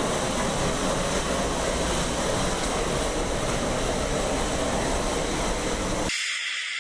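Steady, loud rushing mechanical noise that cuts off abruptly about six seconds in.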